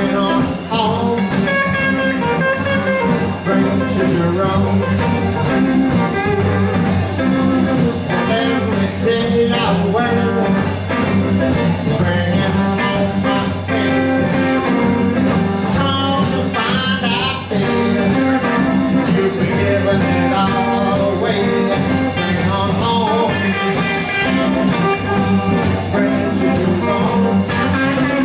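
Live band playing 1950s-style electric blues: electric guitar lines over bass and drums with a steady beat, some notes bent in pitch.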